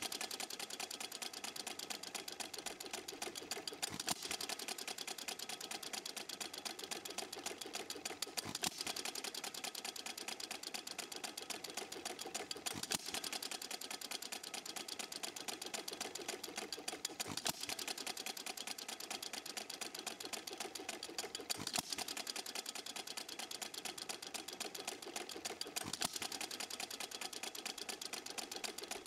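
Stuart Little Major antique hit-and-miss engine running: a fast, steady ticking clatter from the engine as its flywheel coasts, with a firing stroke about every four seconds.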